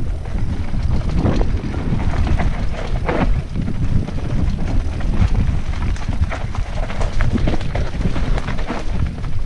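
Mountain bike descending a rocky trail at speed: wind buffeting the camera's microphone over a heavy rumble of tyres on dirt and stones, with frequent rattling clicks and knocks as the bike clatters over rocks.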